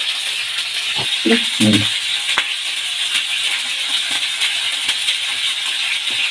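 Fish pieces frying in ghee on a flat iron tawa: a steady sizzle with a few sharp pops, and a brief low sound about a second and a half in.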